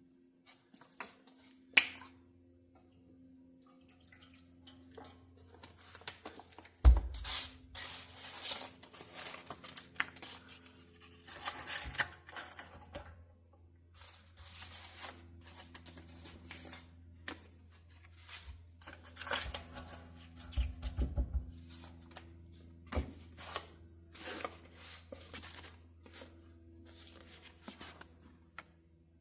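Sandpaper rubbing by hand on a knife's black canvas handle scales in irregular scratchy strokes, with scattered clicks and a loud thump about seven seconds in, over a steady low hum.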